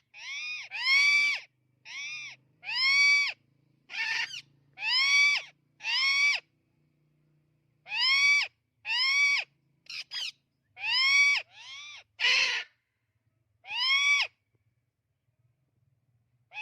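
Amazon parrot giving a string of short, loud call notes, each rising then falling in pitch, roughly one a second, with one harsher call about twelve seconds in and a pause near the end.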